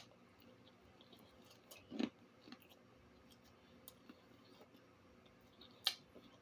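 Close chewing and mouth clicks of a person eating, with a louder wet sound about two seconds in and a sharp click near the end.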